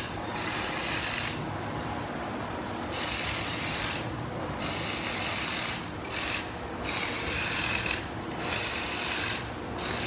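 Repeated bursts of hissing, rasping noise, each lasting about a second, with short quieter gaps between them, in a motor assembly workshop.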